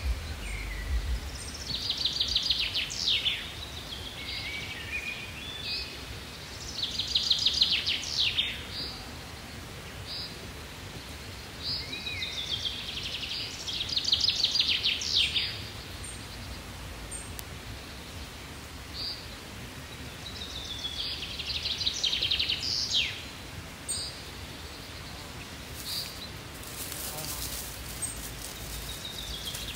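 A songbird singing: short, fast trilling song phrases, each about a second and a half long, repeated every six to eight seconds over a steady low outdoor rumble.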